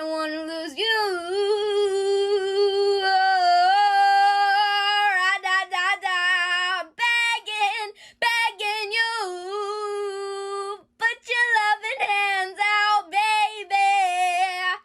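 A high voice singing alone with no accompaniment, holding long notes that waver in pitch, with a few short breaks for breath.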